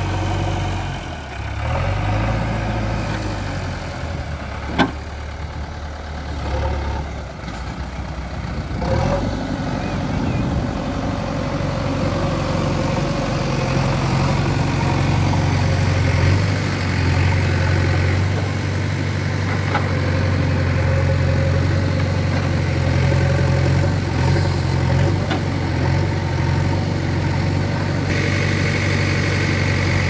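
Diesel engine of a JCB 3DX backhoe loader running close by, with one sharp knock about five seconds in. From about ten seconds in it settles into a steady idle.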